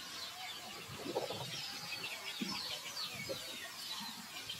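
Birds chirping in many short, falling notes, with a few brief low sounds in between.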